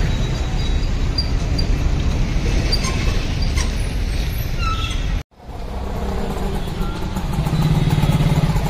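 Steady low rumbling noise of road traffic, broken by a brief cut to silence about five seconds in.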